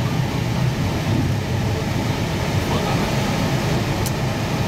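Steady cockpit noise of an Airbus A320 taxiing: a low hum with hiss from the engines and the cockpit air flow. A brief high click about four seconds in.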